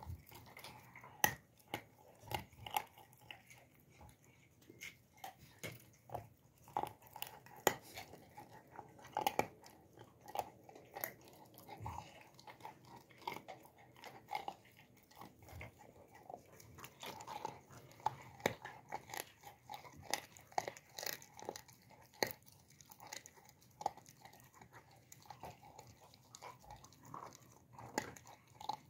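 Central Asian Shepherd (Alabai) puppy chewing and licking at its front paws, making irregular wet clicks and smacks, several a second.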